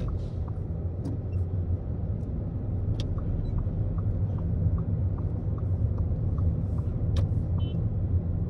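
Steady low rumble of a car's engine and tyres, heard from inside the cabin while driving, with faint regular ticking about three times a second and a couple of sharp clicks.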